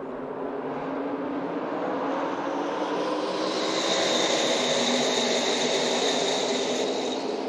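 A pack of NASCAR Craftsman Truck Series trucks running at full throttle as the double-file field comes by, their V8 engines blending into one dense engine noise. The noise builds to its loudest in the middle and eases a little near the end, with a steady high whine on top during the loudest part.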